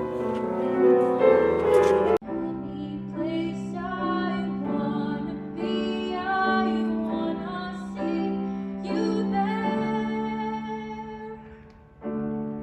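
A woman singing sustained, held notes with piano accompaniment at a live recital. The music breaks off abruptly about two seconds in and again near the end, where a different passage starts.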